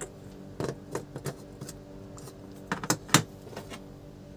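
Plastic LED bulbs clicking and knocking as they are picked up, handled and set against a wooden table and bulb holder, in a string of sharp clicks with a louder cluster near the end. A steady low hum runs underneath.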